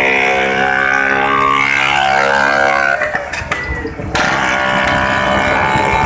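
Old Vespa scooters' two-stroke engines running along the road in a steady drone. About three seconds in, the sound briefly dips and changes, then comes back as a busier mix of engine noise.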